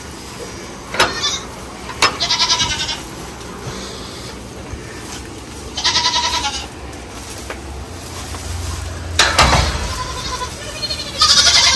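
Goat kids bleating: four short, high, wavering bleats, about one, two and a half, six and eleven and a half seconds in. A single thump comes about nine seconds in.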